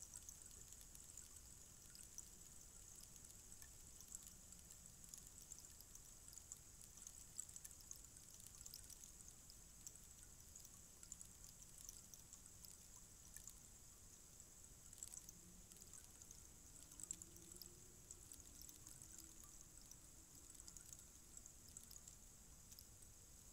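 Tall bamboo rainstick standing on end, its fill trickling down inside as a faint, steady patter of many tiny ticks, like pouring rain.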